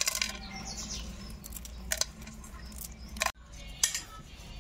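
Sharp crackling clicks of small field crabs being cleaned by hand, shells and legs snapped off over an aluminium bowl, with louder cracks about two and three seconds in. After a cut, a knife scrapes at the rough rind of a kadam fruit.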